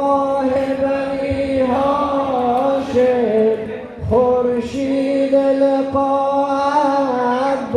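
Persian Shia mourning lament (noha) for Abbas, chanted in long, held, wavering notes, with a short break about four seconds in.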